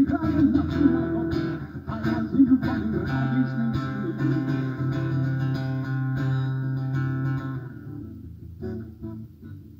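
Acoustic guitar playing: strummed chords, then a chord left ringing for several seconds until it fades, and a few soft plucked notes near the end.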